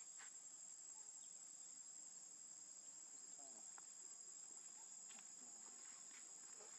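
Faint, steady high-pitched drone of insects, with a few faint short ticks here and there.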